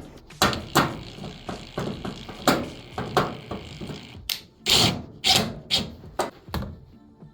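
Irregular sharp clicks and knocks of clothes dryer parts being handled and snapped back into place during reassembly, about fifteen strokes, with a faint hiss in the first half.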